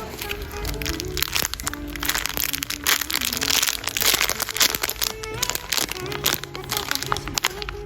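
Background music with a simple melody, over dense crinkling and crackling of packaging being handled and opened, busiest in the middle.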